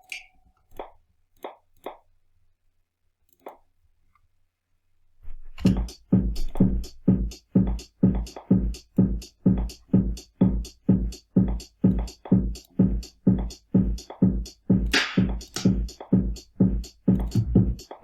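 Programmed electronic drum loop from an Ableton Live Glass Kit drum rack. A steady four-on-the-floor kick comes about twice a second with hi-hats over it, starting about five seconds in after a few scattered single hits.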